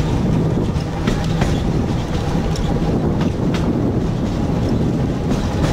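Sóller tram car running along its track, heard from aboard: a steady low rumble with irregular clicks and knocks from the wheels on the rails.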